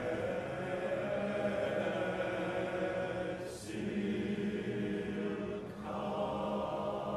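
Tenor and bass male voice choir singing sustained chords in Welsh, the phrases breaking briefly twice, the first break marked by a sung 's'.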